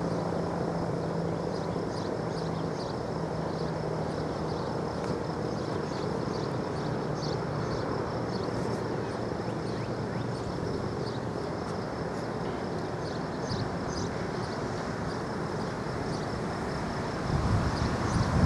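Steady rumble of aircraft engine noise overhead, with faint high chirps throughout. A louder low rumble comes in near the end.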